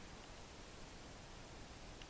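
Faint, steady hiss with no distinct sound events: a quiet background noise floor.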